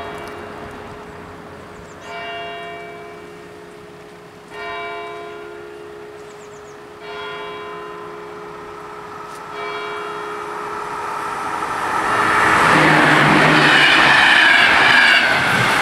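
Level-crossing warning bell striking slowly, about once every two and a half seconds, each stroke ringing on as it fades. From about twelve seconds in, a passenger train runs loudly through the crossing.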